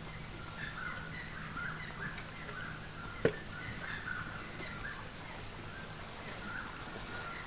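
Many short chirping animal calls, close together at a similar pitch, over a faint steady low hum, with one sharp click a little over three seconds in.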